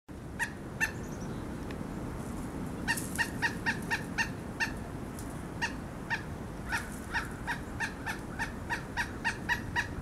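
Pileated woodpecker calling: short, clear-pitched call notes, two single notes at the start and then longer runs repeated at about three to four a second.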